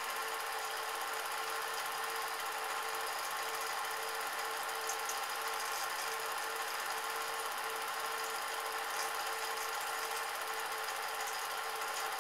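Cine film projector running: a steady mechanical whirr with a constant hum tone, unbroken throughout.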